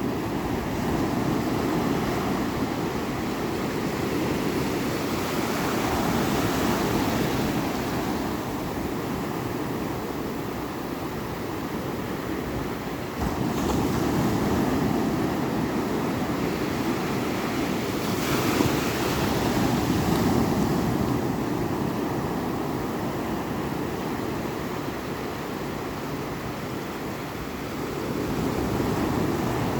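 Ocean waves breaking and washing ashore in a continuous surge, swelling and ebbing every several seconds, with louder breakers about 13 and 18 seconds in.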